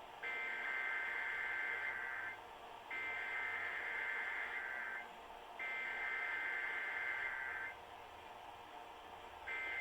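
Emergency Alert System SAME digital header on a radio broadcast: three buzzy data-tone bursts of about two seconds each, separated by half-second pauses, opening a Required Weekly Test. A short fourth burst starts near the end.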